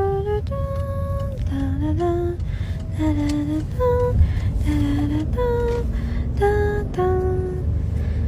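A voice humming a slow, wordless tune of held notes, some sliding up or down in pitch, over a steady low background rumble.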